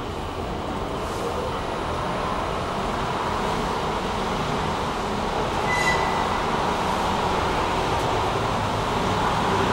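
Inclined elevator cab running along its sloping rail track, a steady mechanical rumble that slowly grows louder. A brief high tone sounds about six seconds in.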